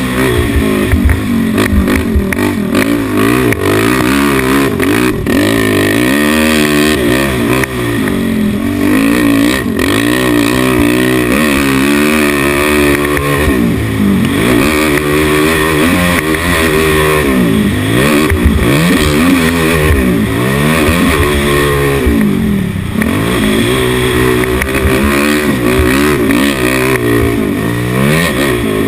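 Dirt bike engine heard close up from the bike, revving up and down again and again as the rider accelerates, shifts and backs off around a motocross track.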